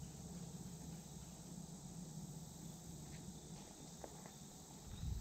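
Faint steady chorus of insects over a low steady hum, with a few soft ticks in the second half.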